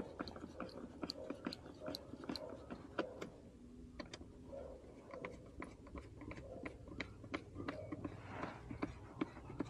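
Faint, irregular clicks and light taps, several a second, of hands handling and fitting air filter housing parts.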